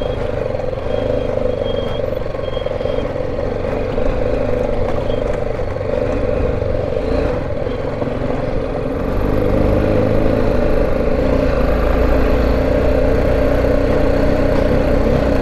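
BMW G310GS single-cylinder motorcycle engine running steadily while riding a rough dirt track, with road rumble underneath. It grows louder about nine seconds in.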